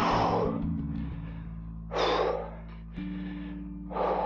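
A cyclist panting hard on a steep climb: three heavy breaths about two seconds apart, the sign of hard exertion on the ramp. Background music with low sustained tones runs underneath.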